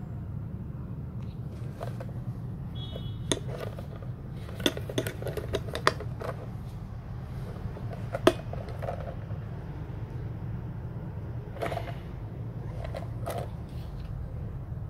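Handling noise from a worn leather binocular case: scattered clicks, taps and rubbing as it is turned over in the hand, clustered in the first half with one sharp knock about eight seconds in, over a steady low hum.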